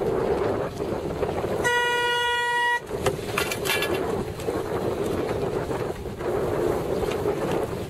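A single horn blast, held for about a second, of the kind used as a sailing race start signal. It sounds over steady wind buffeting the microphone and water rushing past the hull.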